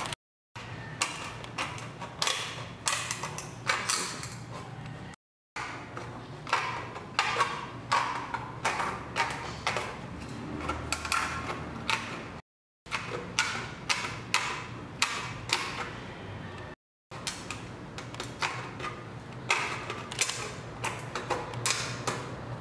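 Aviation snips cutting thin galvanized steel sheet along a curve: a quick series of crisp metallic snips, about two to three a second, broken by a few abrupt silent gaps. A steady low hum runs underneath.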